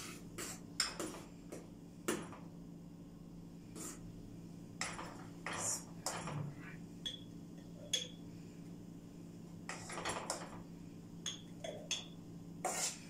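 A metal spoon scraping and clinking against a stainless steel pot and a small glass jar as thick strawberry jam is spooned from pot to jar: irregular knocks and clinks, some ringing briefly, every second or so.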